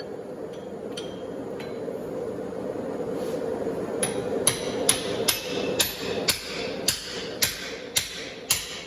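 Hand hammer striking a steel punch to drive out the eye of a forged hammer head, a few light taps and then a run of about a dozen sharp blows, roughly two a second, starting about four seconds in. A steady hum runs underneath.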